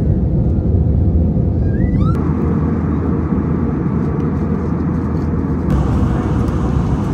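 Airliner cabin noise: a steady, low jet-engine rumble heard from a window seat, with a few short rising chirps about two seconds in.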